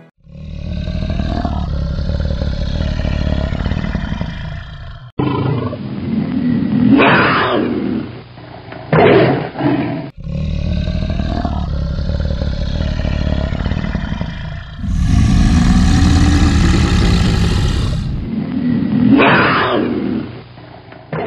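Tiger growls and roars, several clips spliced together: long low rumbling growls, with louder full roars about 7, 9 and 19 seconds in.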